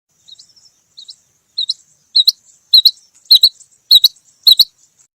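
Female rain quail calling: a run of about seven short, high two-part chirps, roughly one every 0.6 seconds. The calls start faint and turn loud about two seconds in.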